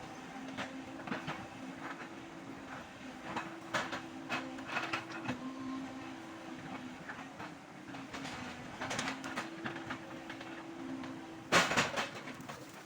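Excavator engine running steadily, with repeated knocks and clatters of the machine at work and one loud crash near the end.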